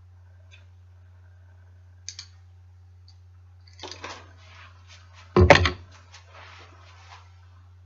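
Handling of tools and bicycle parts during handlebar and stem work: a couple of light clicks, a brief rattle, then one loud clunk about five and a half seconds in, followed by smaller rattles. A steady low hum runs underneath.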